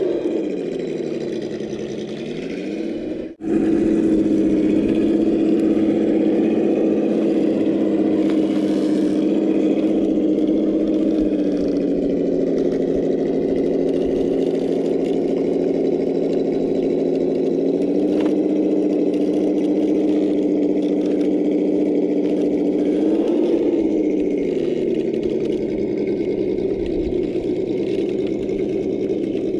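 Traxxas TRX-4 RC crawler's electric motor and gear drive whining steadily as it crawls over rock. The pitch dips and rises with the throttle near the start and again about 23 seconds in. The sound breaks off for a moment about three seconds in.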